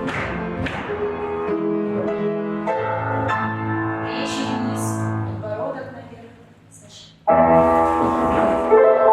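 Piano music accompanying a folk-dance barre exercise. It dies away about six seconds in, and a new passage starts abruptly about seven seconds in.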